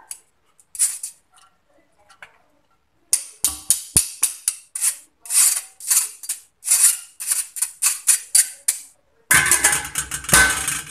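Rice being shaken and tapped out of a steel mesh strainer into a steel pot: a run of quick, sharp metallic taps and rattles, about two to three a second, with a denser clatter near the end.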